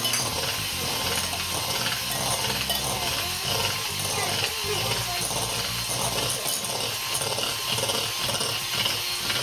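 Electric hand mixer running steadily, its beaters whipping cream cheese in a glass bowl.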